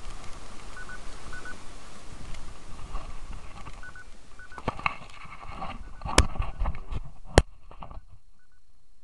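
Short double beeps from a mobile phone, repeating every second or so. Past the middle come rustling handling noise and two sharp clacks about a second apart, the second one the loudest sound.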